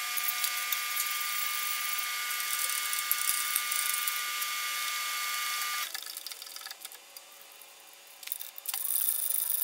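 A small power tool's motor running steadily with a high whine, cutting off about six seconds in. Near the end comes rapid ratchet clicking as the nuts holding the transmission adapter plate to the rotary engine are run down.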